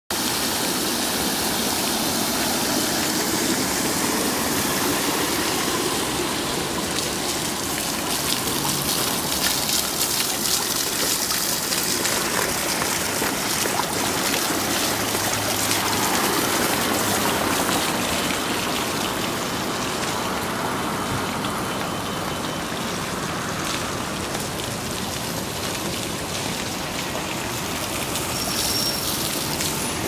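Water fountain running: water sheeting off stainless-steel channels and splashing into shallow pools and a drain grate, a steady even splashing.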